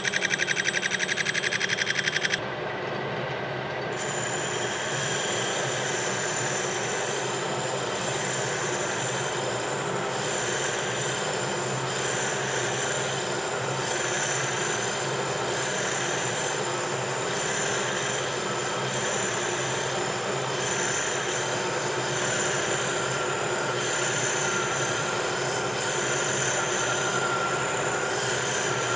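Metal lathe boring a taper inside a cast iron casting: the boring bar cutting with a steady metallic hiss and high squealing tones. For the first two seconds or so there is a fast rattle, the interrupted cut on the rough casting, then the sound settles into a steadier cut.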